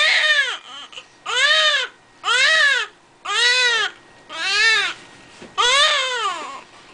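Newborn baby crying in a run of six short wails, about one a second, each rising then falling in pitch; the last wail is longer.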